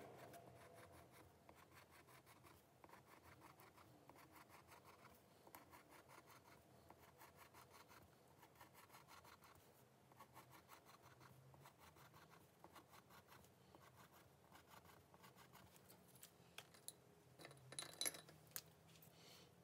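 Faint scratching of a colored pencil on paper in quick short strokes, drawing rows of small wavy lines. A few louder clicks come near the end.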